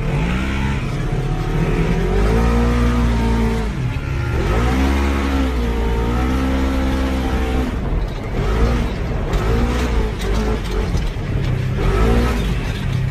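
Side-by-side UTV engines revving across sand, the pitch rising and falling over and over as the throttle is worked, over a steady rumble.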